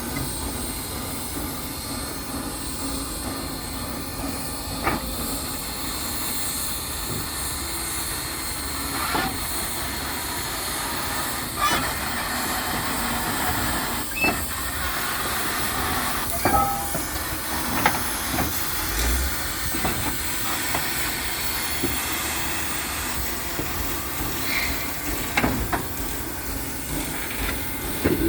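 Southern Railway 4501, a 2-8-0 steam locomotive, with a steady hiss of steam, scattered clanks and knocks, and a few brief squeals of wheels on rail around the middle.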